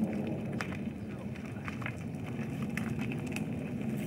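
Bicycles passing on a dirt path: a steady low rumble of tyres and movement, with a handful of scattered sharp clicks and crackles from the bikes and footsteps.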